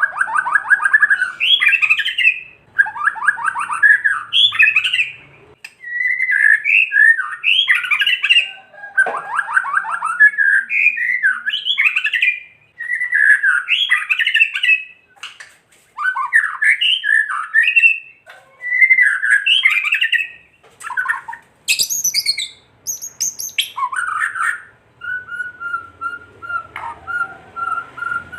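White-rumped shama (murai batu) giving its harsh rattling 'kretekan' calls, the provocation call used to rile other shamas into singing. The calls come as short chattering phrases about every one and a half seconds. Near the end they give way to a few higher, sharp notes and then one long steady whistle.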